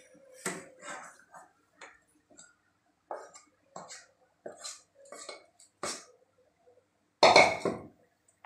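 Wooden spatula scraping thick barfi mixture out of a non-stick kadhai onto a steel plate: scattered short scrapes and light knocks of wood on metal, with a louder clatter of the cookware near the end.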